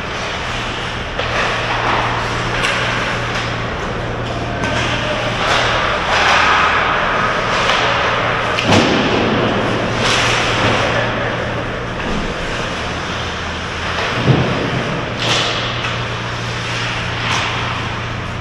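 Ice hockey play: skate blades scraping the ice and sticks clacking, with sharp thuds about nine and fourteen seconds in, over a steady low hum.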